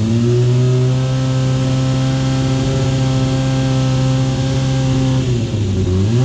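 Racing motorcycle engine revved up and held at steady high revs for about five seconds, then dropping back and revved again near the end.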